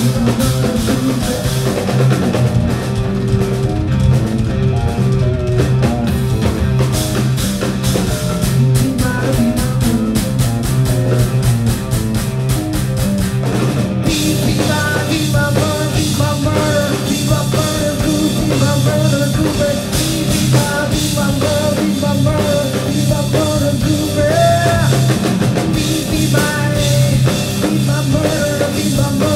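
Live rock band playing loud: electric guitar, bass guitar and drum kit with fast drumming. About halfway through, the cymbals come in and the sound fills out.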